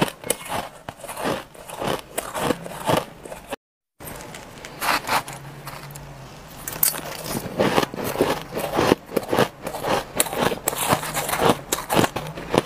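Frosty shaved ice being bitten and chewed: a run of crisp, irregular crunches, broken by a brief total dropout about a third of the way in, after which the crunching resumes, louder and closer together.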